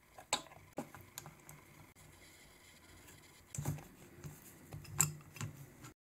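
Plastic quick-release bar clamps and metal F-clamps being set and tightened onto a 3D-printed plastic case: a handful of sharp clicks and knocks, the loudest just after the start, about three and a half seconds in and at five seconds.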